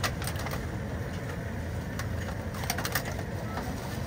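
Outdoor market background with a steady low hum and crowd noise, broken by a few sharp clicks and crinkles of plastic food boxes and bags being handled: once near the start and in a quick cluster about three seconds in.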